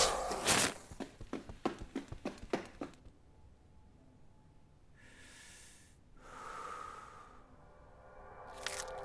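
A sharp hit, then a run of quick clicks that thin out and stop about three seconds in. After a quiet stretch, a person breathes heavily twice, the second breath longer.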